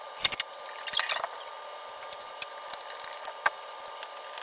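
A few scattered clicks and knocks from TV wall-mount hardware and tools being handled, over a faint steady hiss.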